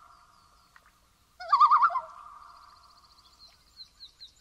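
Bird calls: a loud, wavering call starts about a second and a half in and trails off into a long held note. A small bird's high chirps and a quick trill follow near the end.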